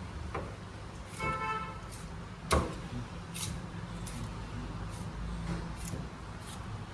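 A cleaver chopping through a large seer fish on a cutting block: irregular sharp knocks, the loudest about two and a half seconds in, over a steady low traffic hum. A brief steady tone, like a horn or beep, sounds about a second in.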